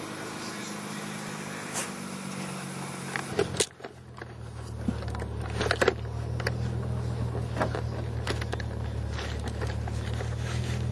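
Nissan 300ZX Twin Turbo's V6 idling steadily. A few seconds in, the sound cuts abruptly to a louder, deeper idle hum heard from down in the footwell, with scattered clicks and knocks.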